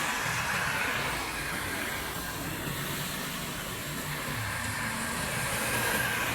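Highway traffic going by: the steady rush of tyres and engines from passing cars and trucks, with a low rumble underneath.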